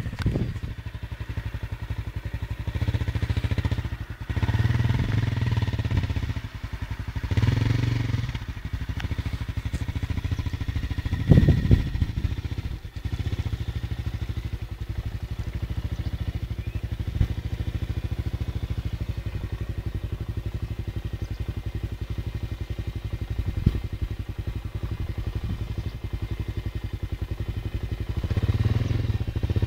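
Suzuki LT-Z400 quad's single-cylinder four-stroke engine running as it wades through water, revving up in short bursts several times in the first twelve seconds and again near the end, with lower, steady running in between.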